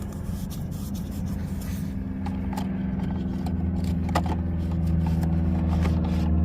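A steady engine hum that gradually grows louder, with scattered light clicks and a scrape of small parts being handled.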